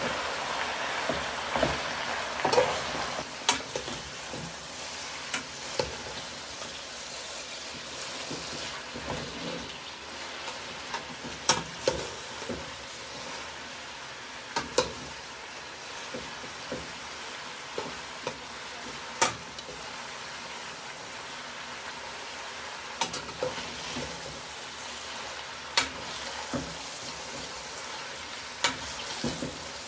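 Sliced bell peppers and onions sizzling in a frying pan as they are stir-fried, with the utensil clicking and knocking against the pan every few seconds. The sizzle is louder for the first few seconds, then settles to a steady, softer hiss.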